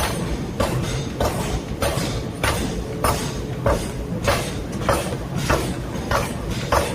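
Hammer blows on metal during forging, in a steady rhythm of about one and a half strikes a second, some blows leaving a short metallic ring, over a steady low rumble.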